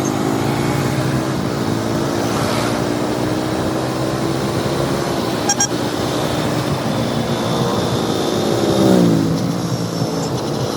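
KTM 200 Duke's single-cylinder engine under way in traffic. Its pitch climbs as it accelerates in the first second or so, holds steady, then drops sharply about nine seconds in as the bike slows.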